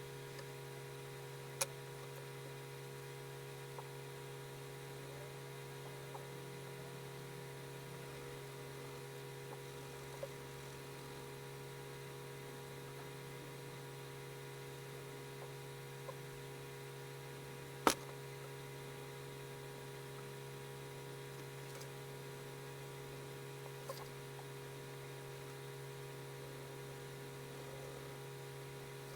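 Steady electrical hum with a few faint isolated clicks; the loudest click comes about 18 seconds in.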